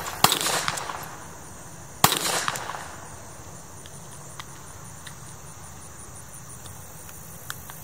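Two pistol shots about two seconds apart, each followed by a long fading echo. Then a few faint light clicks as the pistol is worked back into a belt holster.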